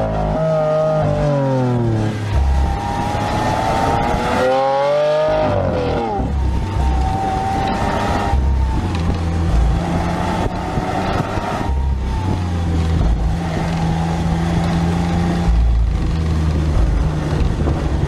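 Lamborghini V12 engine heard from inside the cabin under hard driving: the pitch falls off, climbs steeply about three seconds in, drops sharply at a gear change near six seconds, then carries on in shorter pulls that rise and fall.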